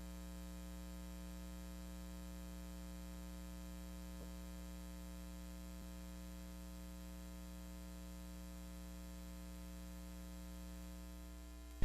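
Steady low electrical hum with a faint static hiss.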